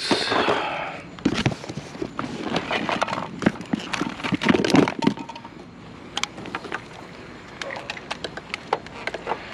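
Handling of an Xbox console and its controller at a curbside pile: a scraping rustle as things are picked up, then irregular clicks and knocks of hard plastic, fewer toward the end.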